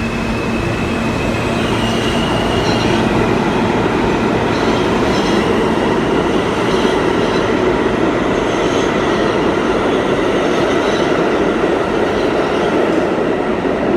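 R160 subway train running alongside the platform, a steady loud rumble of wheels on rails that swells slightly about two seconds in.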